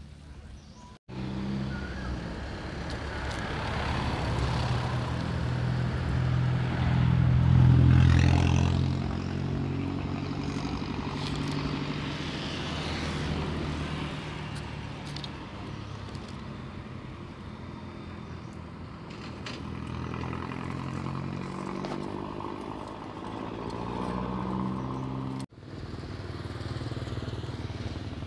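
Motor vehicle engine running, cutting in abruptly about a second in, growing louder to a peak around eight seconds and then running on more quietly with small shifts in pitch, before cutting off abruptly near the end.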